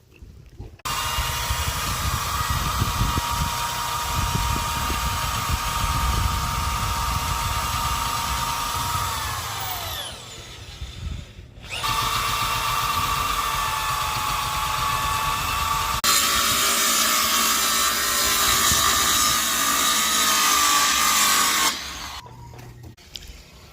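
Electric power tool running on wood in two long runs. Its whine falls as it winds down about ten seconds in, then it starts up again and stops abruptly near the end.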